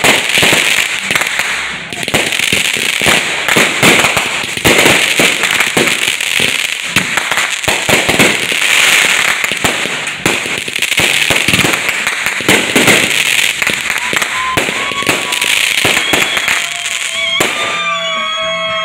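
Fireworks display: a continuous barrage of bangs and crackling from aerial shells bursting overhead. Near the end the bangs die away and music comes in.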